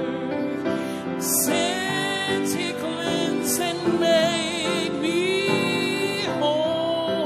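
A man singing a gospel hymn, holding notes with vibrato, accompanying himself on a grand piano.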